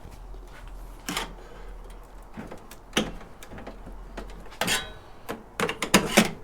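Scattered clicks and knocks from handling the metal case of a Sun Ultra Enterprise 450 server while trying to get it open, with a quicker run of clicks near the end.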